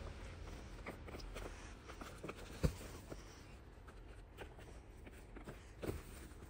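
Scattered crunches and scrapes of packed snow being shovelled and pressed by hand, with one sharper thud about two and a half seconds in.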